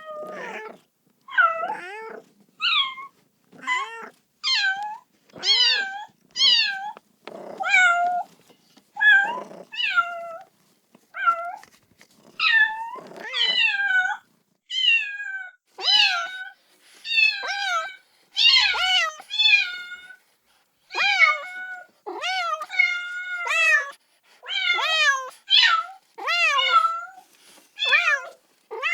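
Kitten meowing repeatedly, calling for its mother: short high-pitched meows, about one a second.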